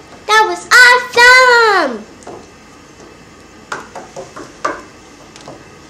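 A child's high-pitched voice making wordless sing-song cries, the last one long and falling in pitch. A couple of seconds later come several light clicks of small plastic toy figurines being handled.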